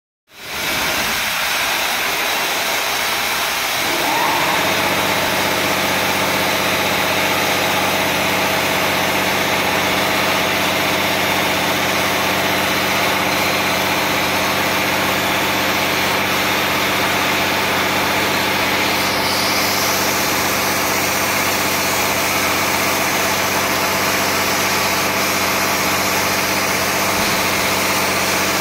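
CNC plasma cutting machine running: a steady hiss over an even hum, with the hum setting in about four seconds in.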